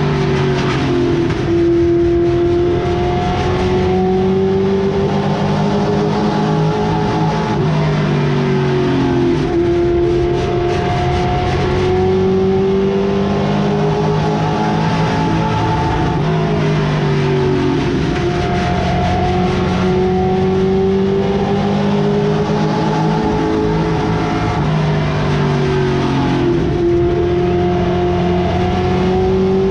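V8 engine of an outlaw late model race car heard from inside the cockpit at racing speed. The engine note drops sharply and climbs again about every eight to nine seconds, as the driver lifts into each turn and gets back on the throttle down the straight.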